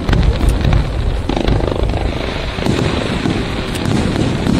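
Fireworks display: aerial shells bursting with booms and sharp crackles in quick succession, over a steady low rumble.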